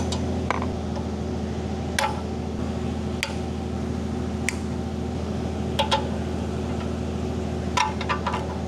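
Light metallic clicks and clinks of hand tools working on small steel gearbox oil-pump parts: a split pin, nuts and fittings. They come singly every second or so, with a quick run of them near the end, over a steady low hum.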